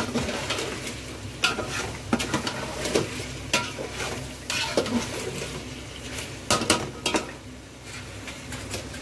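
Slotted steel spatula stirring chicken pieces frying in oil in a metal pot: irregular scrapes and clinks of metal against the pot over a steady sizzle, as the chicken is browned in its masala.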